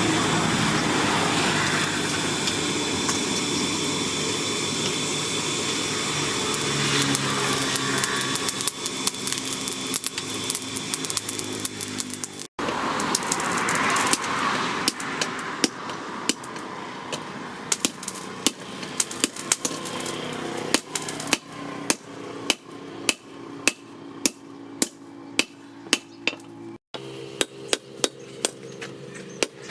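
A hammer strikes hot steel on an anvil, hand-forging a bearing into a knife blade, in quick repeated blows of about two to three a second with a short metallic ring. They grow steadier and denser through the second half. The first part is a steady loud mechanical noise with a faint high whine.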